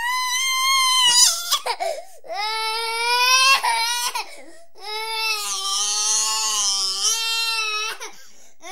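A toddler of about two and a quarter years crying hard: long wailing cries, each one to two seconds long, broken by short sobbing gasps for breath, with a fresh wail starting near the end.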